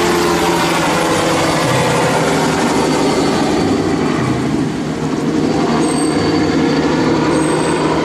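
Light two-bladed helicopter flying low past, its turbine engine and rotor making a loud, steady noise.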